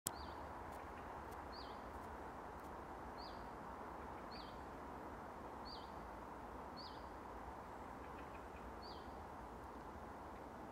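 Willow warbler giving a short, high call note seven times, about once every second or two, each note dropping quickly in pitch. A steady background hiss runs underneath.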